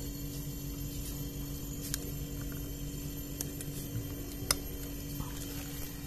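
Refrigerator's hermetic compressor running with a steady hum while locking pliers pinch shut the copper process tube of the charging valve, the system being closed off with the compressor still running. A few light clicks of metal handling, the sharpest about four and a half seconds in.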